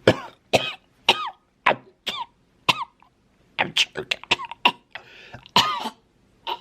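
A man acting out choking: a run of short, strained coughs, gags and gasping voiced bursts, with a brief pause about three seconds in and a longer strangled burst near the end.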